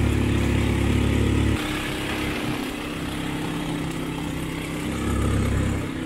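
ATV engine running at low speed off-road. It is louder for the first second and a half, then eases off, and picks up again briefly near the end.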